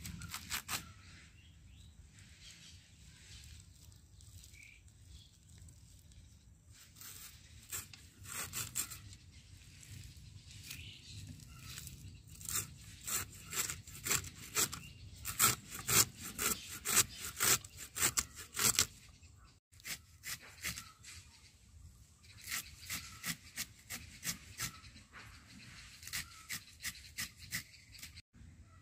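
A blade slicing through fresh, crisp white-stemmed amaranth (data shaak) stems and leaves, in runs of quick crisp cuts about two a second, with short pauses between runs.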